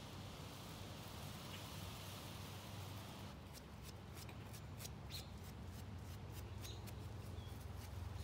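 A paper shop towel rustling and rubbing as gloved hands wipe oil off a motorcycle's engine oil drain plug, starting about three seconds in with many small crinkles, over a faint low hum.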